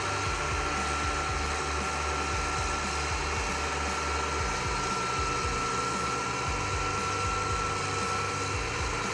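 Case IH AF8120 combine's diesel engine running as the tracked combine moves slowly, a low rumble with a steady high whine over it.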